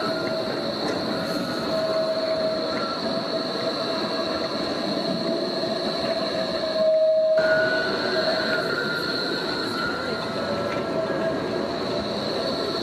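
Low-floor articulated electric trams passing close by: a steady rolling noise with an even high whine held through it. The sound changes abruptly about seven seconds in, when a second tram is heard passing.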